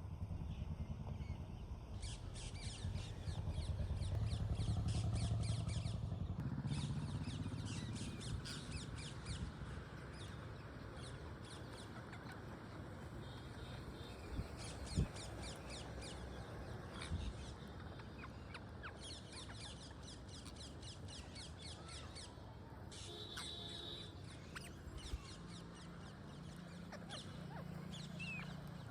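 Parrots chattering, with rapid high trilling calls coming in repeated bursts over a low background rumble, and a single sharp click about halfway through.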